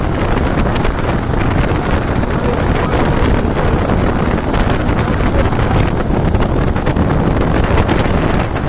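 Wind buffeting the microphone of a motorcycle rider at highway speed, a steady heavy rush with the motorcycle's engine and road noise underneath.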